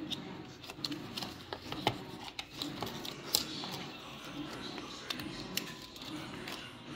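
Crinkling and crackling of thin plastic protective film as it is peeled off a glossy device, with scattered sharp clicks. Under it runs a steady low background hum that swells and fades about once a second.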